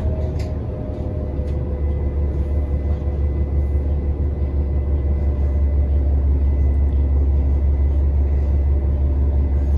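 Cabin sound of a New Flyer XDE60 diesel-electric hybrid articulated bus running: a steady low rumble with a thin, steady high whine above it, growing slightly louder about halfway through.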